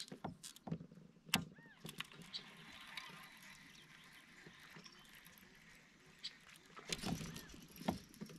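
Fishing reel being cranked to retrieve a buzzbait, a faint steady whir broken by scattered clicks and knocks, the sharpest about a second and a half in and a few more near the end.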